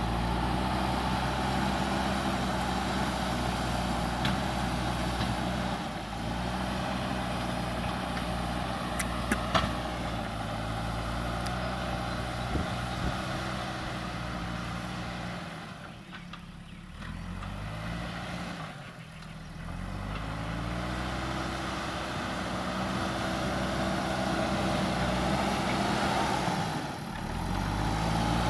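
Diesel engine of a heavy earthmoving machine working, its revs rising and falling again and again under load. It eases off briefly twice, a little past halfway, and there are a few short metallic clanks about a third of the way in.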